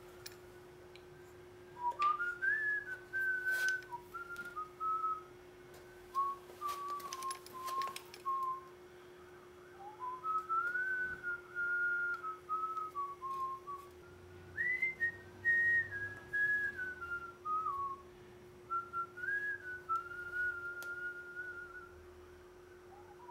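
A tune whistled in several short phrases with brief pauses between them, over a steady low hum.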